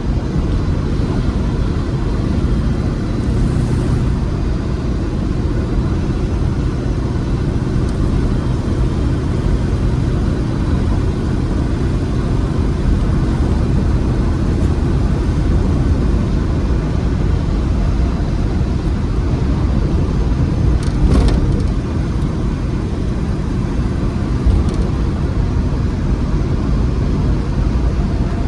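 Rover SD1 Vitesse's 3.5-litre V8 running steadily with road and tyre noise as the car drives along at a constant pace. A short sharp noise comes once, about two-thirds of the way through.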